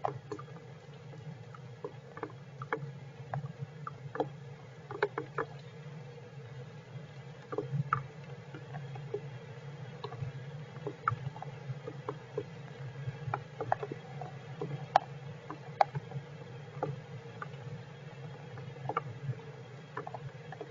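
Heavy rain, with drops ticking irregularly a few times a second over a steady low hum.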